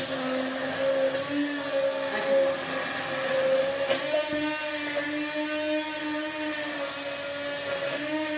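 Electric immersion blender running steadily while whipping cold cream in a tall container, a continuous motor hum whose pitch rises a little about a second in and again about four seconds in.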